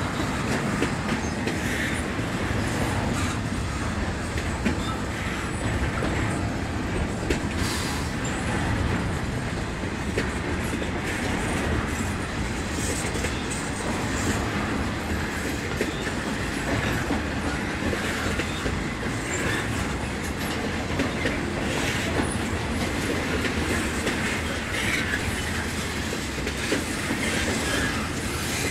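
Double-stack intermodal freight train's cars rolling steadily past, a continuous rumble with the wheels clacking over the rails and now and then a brief wheel squeal.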